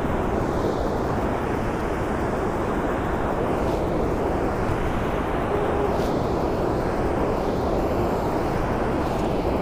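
Steady rushing of water pouring through a dam's sluice gates, an even rumbling noise that does not change.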